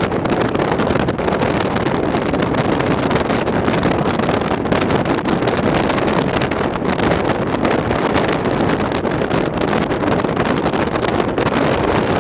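Gale-force wind buffeting the microphone: a loud, steady rumbling roar with no break.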